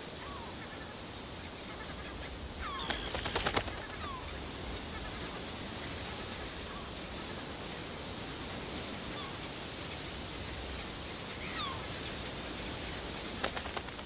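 Steady coastal wind and surf noise with a few short, falling bird calls. A quick rattle of clicks comes about three seconds in, and again just before the end.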